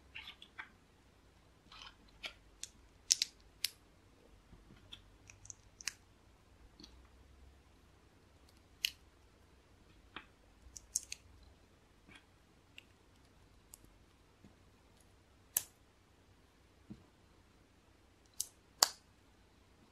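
Small LEGO plastic pieces clicking as they are snapped together and handled, in scattered sharp clicks with gaps between them. The loudest come about three seconds in and near the end.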